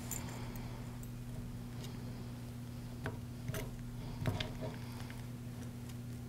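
A few light clicks and taps of a screwdriver tip against a hard plastic trimmer handle housing as wires are pressed into place, the strongest about four seconds in, over a steady low hum.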